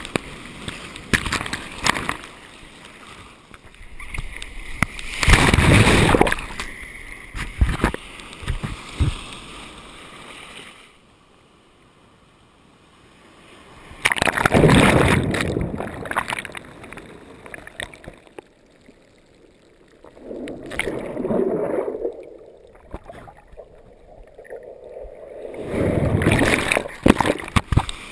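Surf and whitewater rushing over a camera mounted on a bodyboard at water level: loud washes of water about five seconds in, midway through and near the end as waves break over it, with quieter stretches between where only a dull, low rush is left.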